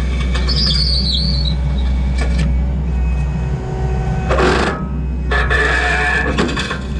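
Kubota SVL90-2 skid steer's diesel engine running with a steady low drone. A short high squeal comes about half a second in, and from about four seconds in there are bursts of harsh scraping as the tooth bucket works through concrete.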